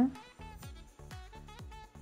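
Background music with a steady drum beat, regular low drum hits about twice a second under a sustained melody.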